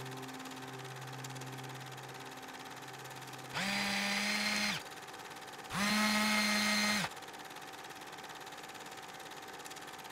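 Two whirs of a small motor, the second a little longer, each about a second and rising quickly to a steady pitch as it spins up. Before them a low held note fades away.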